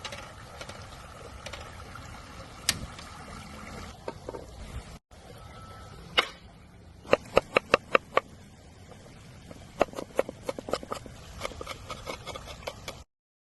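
Kitchen prep sounds: scattered clicks and taps, then a quick run of about six sharp knocks a little past halfway, with more lighter taps after. The audio drops out briefly twice at edits.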